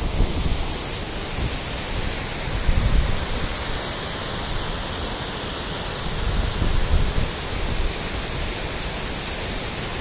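Water pouring over a long river weir and churning below it, a steady rushing roar. Low rumbles swell about three seconds in and again near seven seconds.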